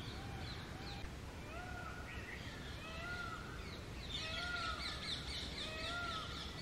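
Birds calling: a short rising-and-falling call repeated about twice a second, with a burst of higher, thinner chirping joining in about four seconds in.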